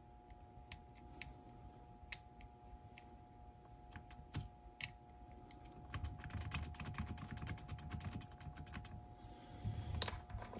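Light clicks and taps of a cassette deck's tape mechanism being handled by hand, sparse at first, then a quick run of clicking for about three seconds from roughly six seconds in.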